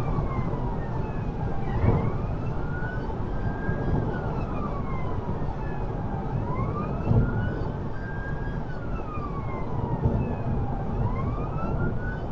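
The emergency response car's own siren sounding a slow wail, rising and falling about every four to five seconds, heard from inside the cabin over heavy road and engine noise at high speed. A few dull thumps come through, the plainest about two seconds in and about seven seconds in.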